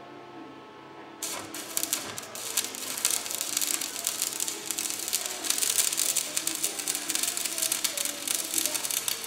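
Electric arc welding on steel: the welding arc strikes about a second in and then crackles and sizzles steadily as a small chisel axe head is fused to an iron-bar handle.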